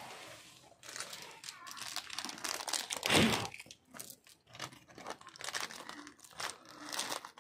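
Packaging being crinkled and handled in irregular crackly bursts, loudest about three seconds in, as a parcel is unpacked.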